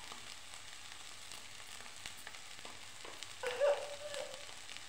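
Potato chunks and chopped cabbage stalks and greens frying in oil in a kadhai on low heat: a faint, steady sizzle with a few small clicks. About three and a half seconds in, a short high voice-like sound rises above it.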